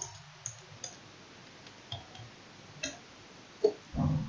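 Separate single keystrokes on a computer keyboard, about eight sharp clicks spread irregularly over a few seconds, with a louder low thump near the end.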